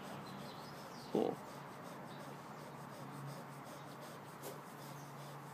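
Faint rubbing and handling of a cloth towel and tissue against a Brittany's fur and skin as hands massage and wipe her mastitis-affected teat, with one short, louder sound about a second in.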